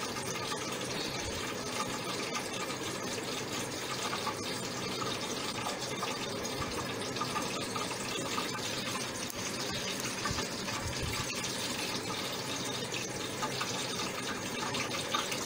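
A steady, even hiss, with faint scraping of soft boiled potato rubbed on a flat metal grater.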